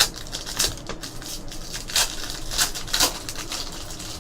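Trading cards being handled and flipped through, sliding against each other: several short papery snaps and swishes.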